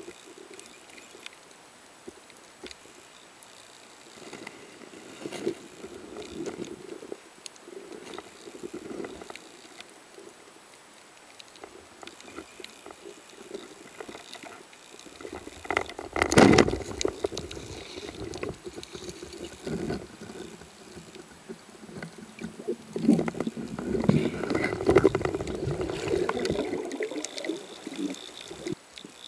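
Underwater sound through a camera housing on a speargun during a breath-hold dive: low water rustle with small clicks, a loud thump about sixteen and a half seconds in, and louder churning water near the end as the diver swims up toward the surface.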